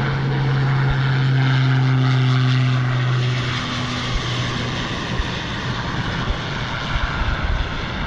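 Twin-engine turboprop air tanker with its propellers in reverse pitch, braking the aircraft on its landing rollout. It makes a loud, steady propeller roar that eases off about four seconds in as the aircraft slows.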